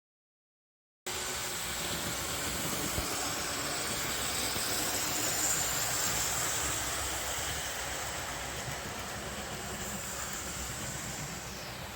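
A steady hiss that starts suddenly about a second in and holds at an even level.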